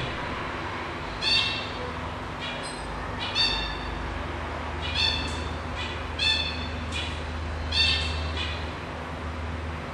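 Kitten mewing: a string of short, high-pitched mews every second or so, with a low steady hum underneath.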